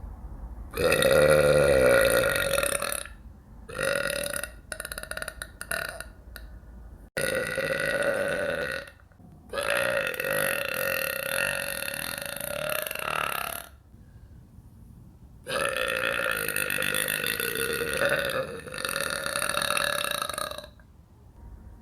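A woman burping: a series of about six long, loud burps, each lasting two to four seconds with short breaks between. The first, about a second in, is the loudest.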